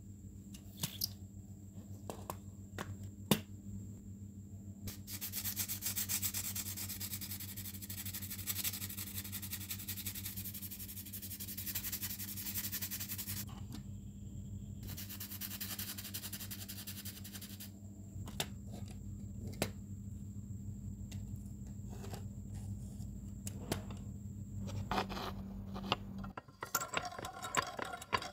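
Hand sanding on a small die-cast metal model car, a dense scratchy rubbing in two long spells with short clicks and taps around them, over a steady low hum.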